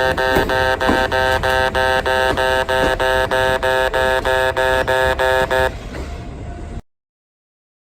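Japanese railway level-crossing alarm ringing its electronic bell, a rapid repeating clang of about three and a half strokes a second. It stops abruptly near the end, leaving a low rumble for about a second before the sound cuts out.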